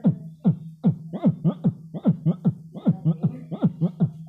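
Beatboxing: a man imitating DJ music with his mouth, a fast, regular run of falling bass-kick thumps, about three to four a second, over a steady low hum.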